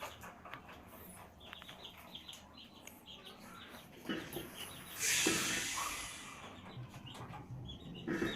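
Small birds chirping repeatedly, with a loud hiss lasting about a second and a half around five seconds in.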